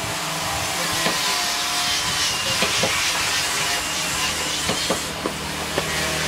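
Small sharp clicks of wooden belt pieces knocking together as they are handled and threaded, scattered at irregular moments over a steady hiss.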